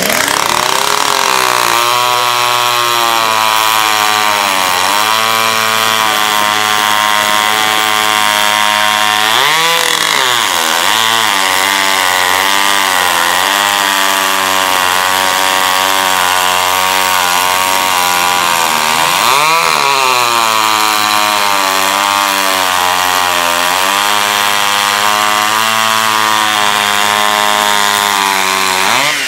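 Vintage two-stroke chainsaw running at full throttle while cutting through a log. The engine pitch dips and recovers twice, about ten seconds in and again just before twenty seconds.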